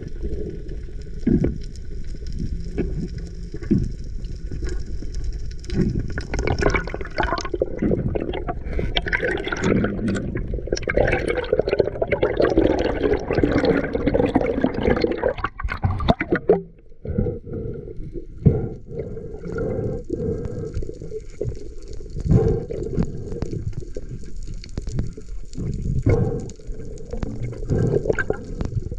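Water sloshing and gurgling close to the microphone, with scattered knocks. The sound drops away briefly a little past halfway, then resumes.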